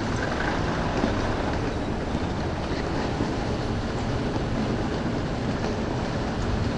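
Steady, dense urban background noise: a low rumble like traffic, with no distinct events standing out.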